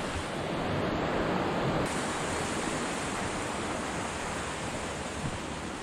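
Steady rushing of a mountain river flowing over rocks, easing slightly about two seconds in.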